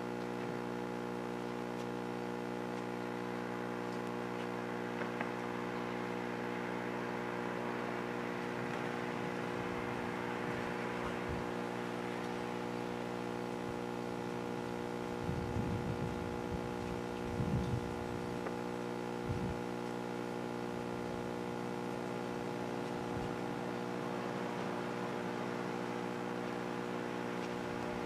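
Steady electrical hum with a stack of evenly spaced overtones that never changes pitch, with a few brief low rumbles about halfway through.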